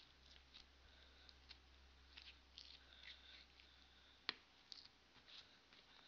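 Faint sticky crackling and small clicks of marshmallow-based edible slime being pulled and squeezed between the fingers, with one sharper click a little past four seconds in.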